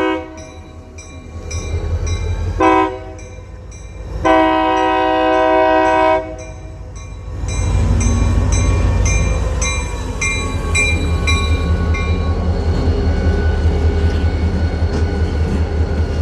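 Florida East Coast Railway diesel locomotive sounding its horn: the end of one blast, a short blast, then a long blast, the closing part of the grade-crossing signal. A bell rings steadily behind the horn until partway through. From about halfway in, the locomotive's diesel engine rumbles loudly as it moves past.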